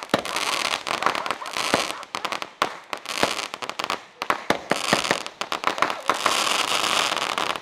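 Consumer fireworks going off in rapid succession: a dense run of sharp pops and bangs over a fizzing hiss that swells and fades.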